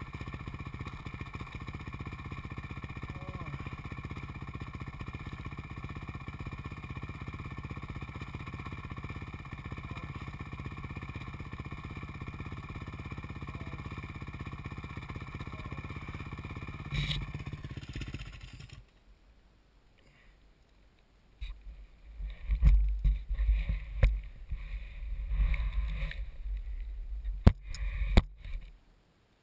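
A dirt bike's engine runs steadily at idle with a low, even pulsing, then cuts out after a click about 17 seconds in. After a brief near silence come loud, uneven low thumps and a few sharp knocks as the helmet-mounted camera is handled and moved.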